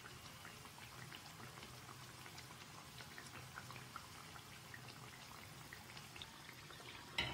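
Banana and cassava-flour pancakes deep-frying in a pan of oil: a faint, steady sizzle with many small crackles. A sudden louder noise comes at the very end.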